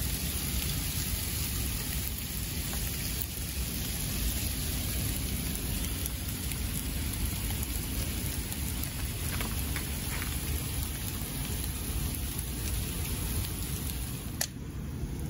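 Hail falling, a steady hiss of ice pellets pattering on the ground and cars with many faint ticks. A single sharp click sounds near the end.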